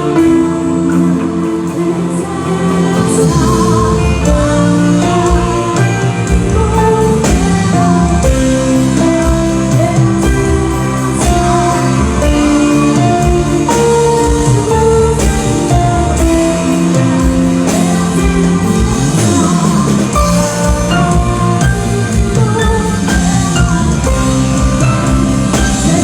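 Band music with guitar and sustained melodic notes; a low bass and drum beat comes in about two seconds in and continues steadily.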